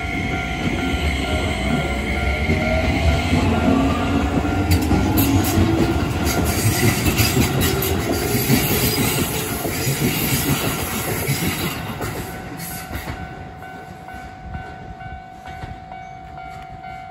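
Keio Line electric commuter train passing close by on a curve at a level crossing, its running noise loudest in the middle and fading away about twelve seconds in, with a rising whine in the first few seconds. A steady electronic level-crossing alarm keeps ringing behind it.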